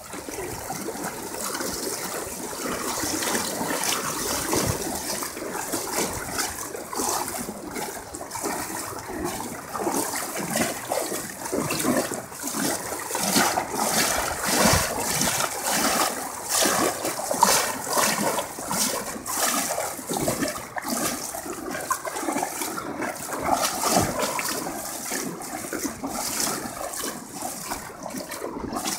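Fast-flowing floodwater rushing and splashing over a flooded street, with an uneven, churning wash that rises and falls.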